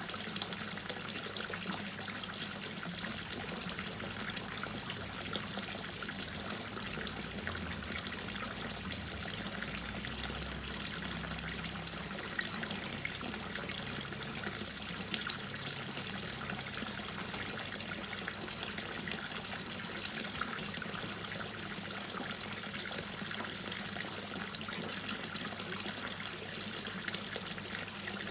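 Water dripping and trickling steadily, with a couple of sharper drips standing out in the middle.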